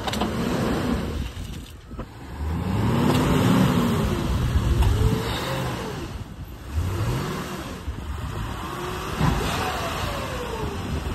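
Vehicle engine revving under load, its pitch climbing and falling several times, over a steady rush of tyre and wind noise.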